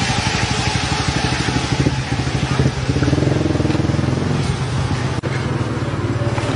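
A small engine running steadily: a low, fast-pulsing drone with hiss over it.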